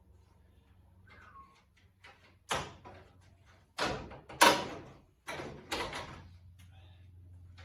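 Five heavy bangs over about three seconds, each ringing out briefly; the third is the loudest.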